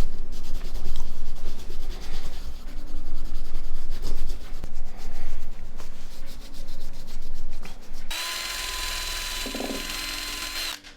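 Plastic phone parts being polished by hand, rubbed with a cloth in uneven strokes. About eight seconds in, a small rotary polishing tool starts and runs with a steady high whine, then stops just before the end.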